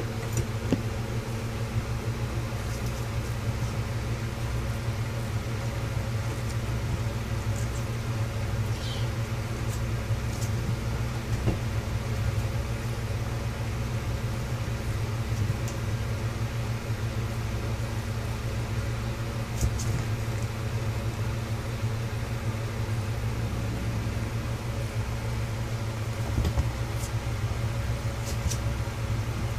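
Steady low mechanical hum of a running household appliance, holding one even pitch throughout, with a few faint light ticks and taps over it.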